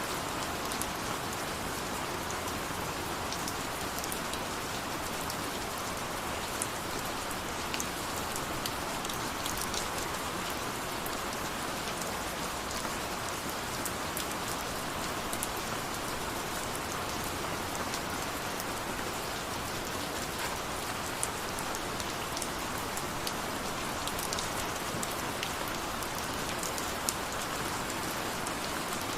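Steady rain, with many small droplet ticks over an even hiss.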